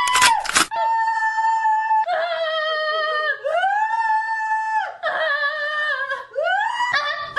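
A high-pitched voice wailing a tune in long held notes that bend up and down, after a short clatter at the very start.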